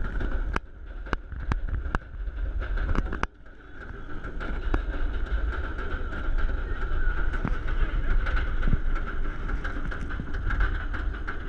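Chain lift of a Bolliger & Mabillard hyper coaster hauling the train up the lift hill: a steady whir over a low rumble. Sharp clicks of the anti-rollback come about twice a second for the first three seconds, then only now and then.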